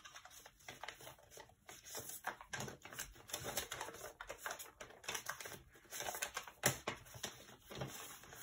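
A sheet of paper being accordion-folded and creased by hand on a tabletop: faint, irregular crinkles and light taps.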